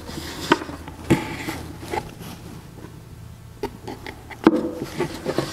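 Wooden concealment shelf being handled and its hinged lid swung open on concealed cabinet hinges: several light knocks and clicks of wood and hinge hardware, over a faint low steady hum.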